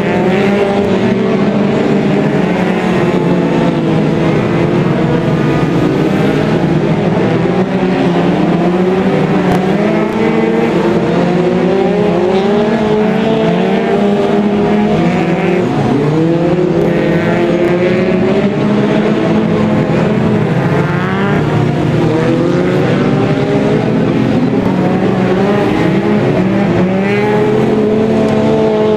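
A pack of winged stock cars racing, several engines at once, each rising and falling in pitch as the cars accelerate and lift off. The sound runs without a break.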